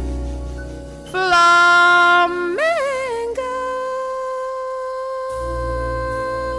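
Jazz band music with no vocal: horns hold long notes, one sliding up about two and a half seconds in, then settling on a long steady note.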